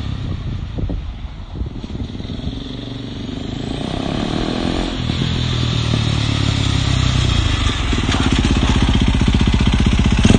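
KTM 450cc single-cylinder four-stroke dirt bike engine powering a go-kart. It fades as the kart moves off, then revs up with a rising pitch and grows louder as the kart comes back. It runs close by with an even, low beat near the end.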